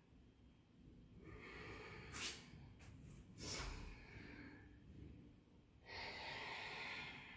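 A woman breathing hard through the nose under physical effort: several long, noisy breaths, with two short, sharper puffs about two and three and a half seconds in.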